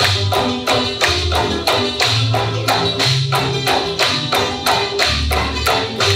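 Background music with a steady quick beat of sharp percussion hits, about three a second, over a changing bass line.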